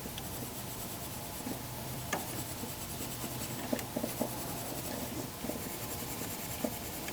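Steel wool scrubbing a furnace flame sensor to rub off its corrosion: a faint, steady scratching with a few light clicks.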